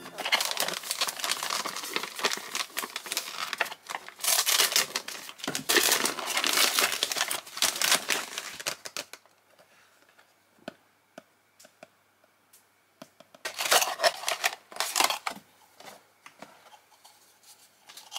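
Christmas wrapping paper being torn open and crinkled by hand: dense crackling and tearing for about the first half, then only small clicks and rustles, then another short burst of crinkling about three-quarters through.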